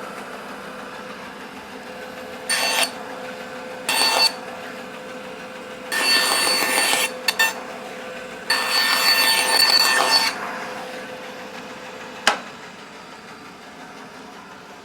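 Laguna 14-Twelve band saw running with a steady hum while making test cuts in wood with its freshly changed blade: two short cuts, then longer ones. About twelve seconds in it is switched off with a click and the hum stops.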